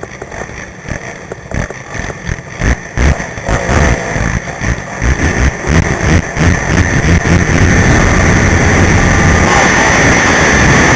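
Racing quad (ATV) engine, heard from a helmet camera, revving in short uneven blips that grow louder, then held steady and loud from about eight seconds in as the quad gets under way on the dirt track.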